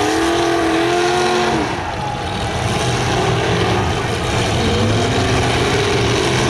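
Demolition derby cars' engines revving hard over a dense rumble, their pitch rising and falling. The revving drops off about a second and a half in and climbs again near the end.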